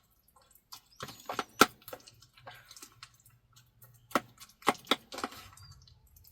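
A spoon knocking and scraping in a dish as food is mixed: sharp, irregular clicks and taps, several close together about four to five seconds in.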